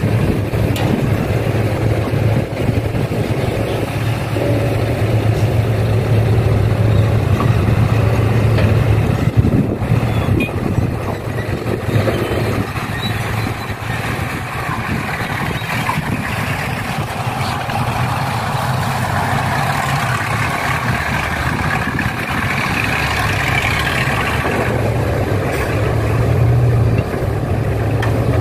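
Heavy diesel engine running with a steady low drone; a higher engine note builds about twenty seconds in and drops back a few seconds later.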